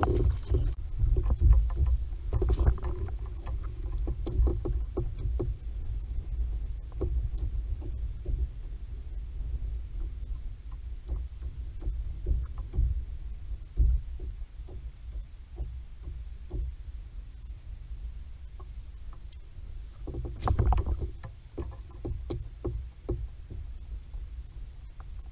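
Plastic Hobie fishing kayak on the water: a steady low rumble of wind and water against the hull, with many small knocks and clicks as rod and tackle are handled on board, a brief flurry of them near the end.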